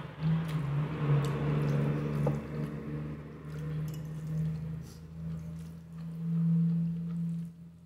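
Close-miked wet chewing of spicy instant noodles with ham, over a steady low hum that swells about six and a half seconds in.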